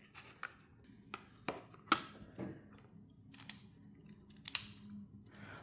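Several light, irregular clicks and taps of small 3D-printed plastic engine parts being handled.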